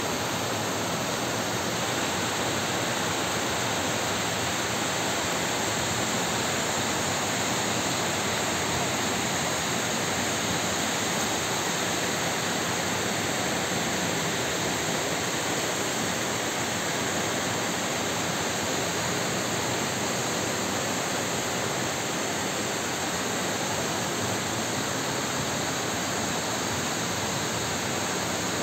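Heavy rain and floodwater running down a street, a steady rushing noise that does not change.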